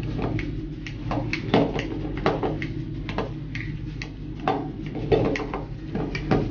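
Metal wire potato masher pressing boiled potatoes and knocking against a ceramic bowl, in irregular knocks about twice a second.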